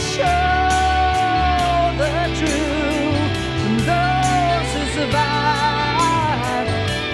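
Full-band rock ballad: bass, drums with regular cymbal strokes, and guitars, under a long held lead melody that wavers and bends.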